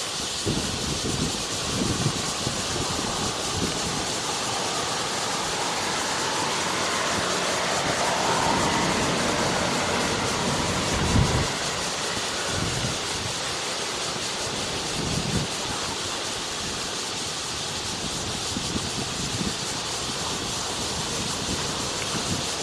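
Wind buffeting the microphone with irregular low thumps, over a steady outdoor hiss that swells slightly about eight seconds in.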